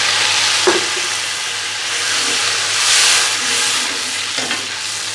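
Water poured onto hot oil and browned onions in a karahi, giving a loud, steady sizzle as the water meets the oil. A metal ladle clinks against the pan about a second in and again near the end.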